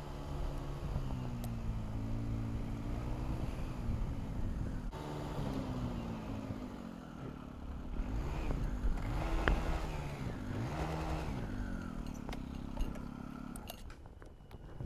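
Motorcycle engine running under way, its pitch rising and falling several times as it speeds up and slows, then dying down near the end.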